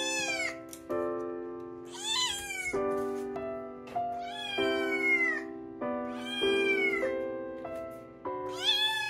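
Munchkin kitten meowing about five times, each meow arching up and then down in pitch, with a longer one in the middle. Background music of held chords plays throughout.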